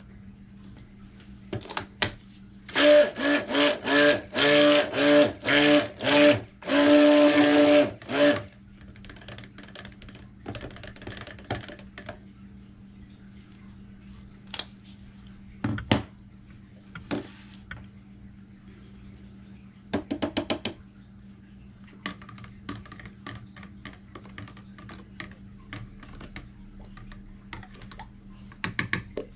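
Handheld stick blender pulsed in short bursts, about eight, in a plastic pitcher of cold process soap batter, the last burst held for about a second and a half, blending titanium dioxide into the batter. Afterwards come light clicks and taps of utensils on the plastic containers.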